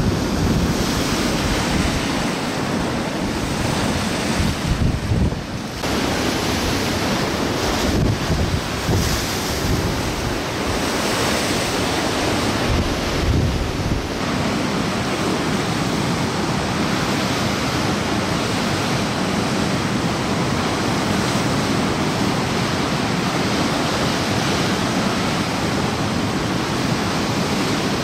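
Rough lake waves churning and breaking in a gale, with strong wind buffeting the microphone, unevenly in the first half and more steadily later on.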